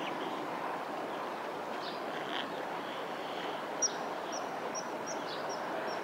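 Steady background noise of distant traffic. From about four seconds in, a run of short, thin, high-pitched bird calls, roughly two or three a second.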